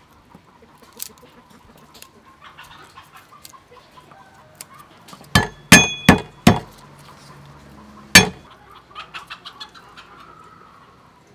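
A cleaver whacked down on garlic cloves on a thick wooden chopping block: four sharp knocks in quick succession about halfway in, the steel blade ringing briefly after a couple of them, and one more knock about two seconds later. A quick run of lighter taps and clicks from handling and peeling the cloves follows near the end.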